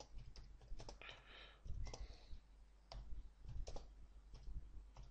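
Quiet typing on a computer keyboard: irregular runs of key clicks.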